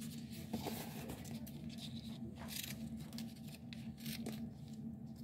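Faint rustling and crinkling of a strip of tape being handled, with a scattering of short, soft scrapes and crackles.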